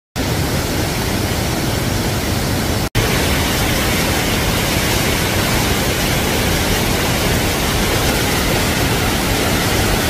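Waterfall (Paraeso Falls) plunging into its pool: a loud, steady rush of falling water that cuts out for an instant about three seconds in.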